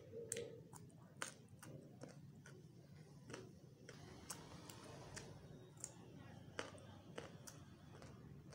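Close-up eating sounds of a person chewing: faint, scattered wet clicks and smacks at uneven intervals, about a dozen over the few seconds, over quiet room tone.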